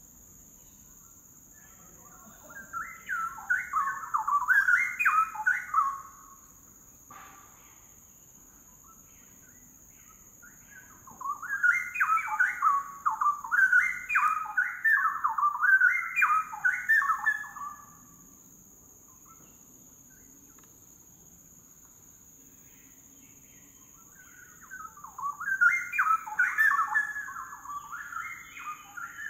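Straw-headed bulbul singing in three bouts of rapid, rising-and-falling whistled notes, each several seconds long with pauses between. A faint steady high tone runs beneath.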